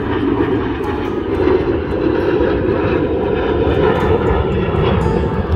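Twin-engine jet airliner flying overhead: steady, loud jet engine noise.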